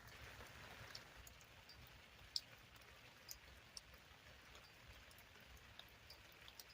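Faint light rain: a soft hiss with scattered, irregular drips and ticks, one sharper tick about two and a half seconds in.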